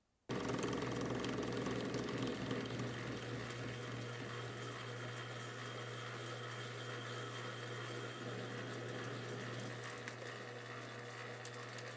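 Metal lathe running with its chuck spinning while a parting tool cuts through stainless steel hex bar to part off a nut: a steady motor hum under an even cutting hiss, starting abruptly a moment in.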